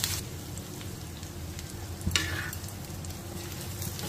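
Pieces of meat frying in oil in a pan, sizzling softly while a steel spoon stirs them, with one louder scrape of the spoon against the pan about two seconds in.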